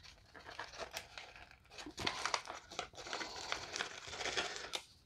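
Packaging crinkling and rustling as a ration beverage bag and sports-drink powder packet are handled, with many small crackles that get busier about two seconds in.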